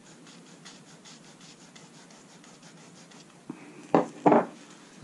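Burnt tip of a fluorocarbon fishing line scratching faintly on notebook paper in rapid, repeated strokes as it draws a charcoal test mark. Near the end there is a click, then two short, louder knocks as the line spool is handled and set down on the desk.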